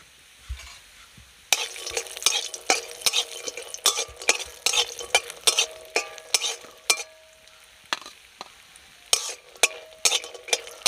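Bori (sun-dried lentil dumplings) frying in oil in a metal kadai with a light sizzle, while a metal spatula stirs them with many sharp scrapes and taps against the pan. The stirring starts about a second and a half in and pauses briefly near the end.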